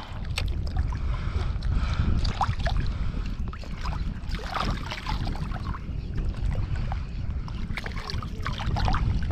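Water sloshing and small splashes around a person wading chest-deep in the sea, over a steady low wind rumble on the microphone.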